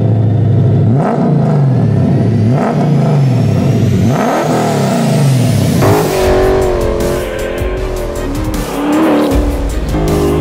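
Lexus IS-F 5.0-litre V8 in a Toyota Hilux revved through twin exhaust pipes: about four blips, each rising and falling, in the first six seconds, then a steadier run of the engine. Music plays over it.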